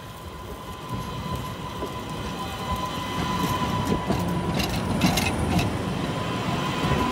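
MBTA Green Line Type 8 light-rail car pulling into the platform and passing close by: the rumble of its wheels on the rails grows louder over a steady high whine, with a few sharp clicks a little past the middle as the wheels run over the track.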